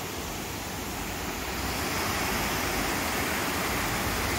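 Steady rushing of falling water from a waterfall, growing slightly louder about halfway through.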